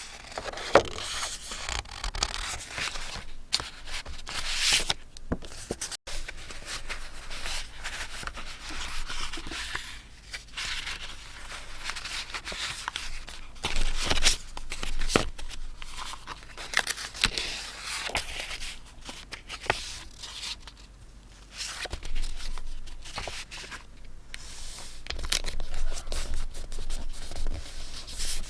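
Paper and stationery handled close to the microphone: irregular rustling, rubbing and scraping of paper, with occasional tearing and sharp clicks.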